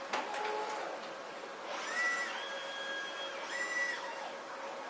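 Assembly-line machinery with industrial robot arms running: a steady mechanical hiss and hum, a sharp click at the start, and two short high electric whines about a second and a half apart.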